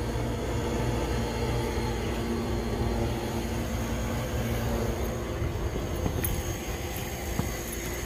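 A steady low mechanical hum over a rumbling noise bed, with a couple of faint clicks near the end.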